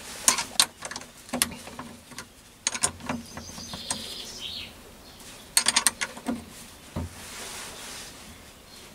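Metal clinks and taps of steel hand tools working a lathe's quick-change tool post while its centre height is set. Sharp clicks come in short clusters, the tightest run about six seconds in.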